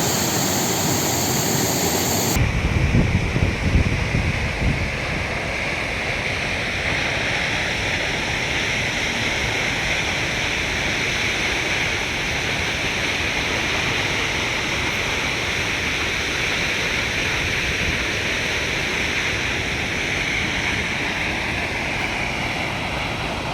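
Steady roar of the Düden waterfall's water crashing down, an even rushing noise with no pitch. The sound changes abruptly about two seconds in and is briefly joined by low, uneven rumbles.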